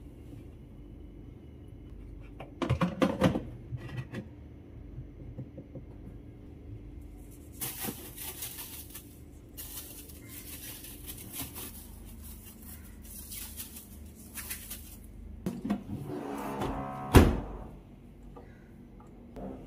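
Clicks of the plastic filter being twisted into a dishwasher's sump, then stretches of fine powder being shaken out over the stainless tub, hissing and pattering. About 17 s in the dishwasher door shuts with one sharp loud thunk. Soft background music runs underneath.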